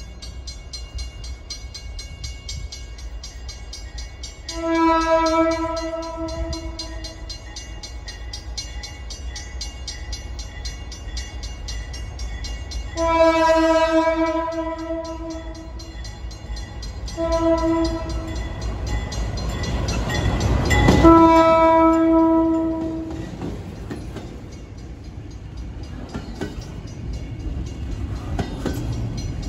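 Diesel freight locomotive sounding its air horn in the grade-crossing pattern of long, long, short, long as it approaches, its rumble swelling to a peak as it passes about two-thirds of the way through. Then the double-stack container cars rumble and clatter by.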